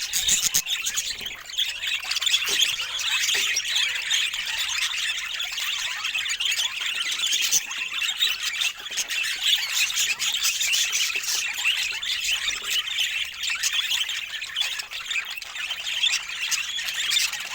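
Budgies chattering and squawking together: a dense, unbroken mix of short, high chirps and warbles from several birds.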